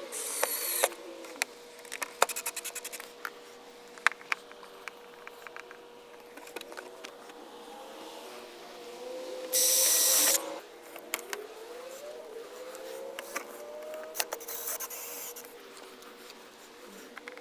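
Razor knife trimming the edge of a plastic trailer fender shroud: short scraping cuts with scattered clicks and handling knocks, and one louder hiss lasting under a second about ten seconds in.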